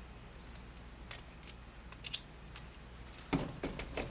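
Handling noise from a camera and its metal mounting plate while the plate is taken off the camera's base: scattered faint clicks, then a louder cluster of clicks and knocks a little over three seconds in.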